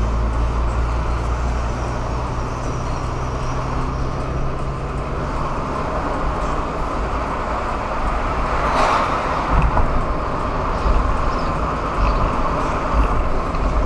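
Car engine and road noise heard inside a moving car's cabin: a steady low hum under a hiss of tyre noise, with a short swell of noise about nine seconds in.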